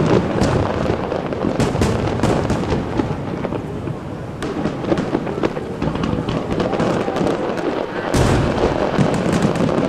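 Aerial fireworks display: a dense, continuous run of shell bursts and crackling reports, with a heavier bang about eight seconds in.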